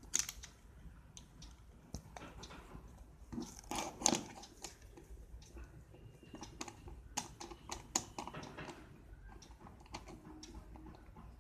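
Irregular light plastic clicks and taps of a Rubik's cube being handled and taken apart by hand, its pieces knocking together, with a few louder clacks about four seconds in and again around seven to eight seconds in.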